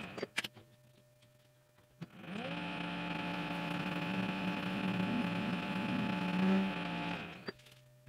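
Metal lathe spinning up about two seconds in with a rising whine, running with a steady hum, then winding down near the end. A few light clicks right at the start.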